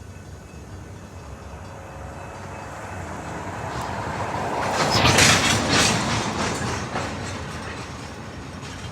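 Sierra Northern Railway freight train rolling past slowly, its wheels clicking over the rail joints. The sound builds, peaks about five to six seconds in with a run of sharp clicks, then fades.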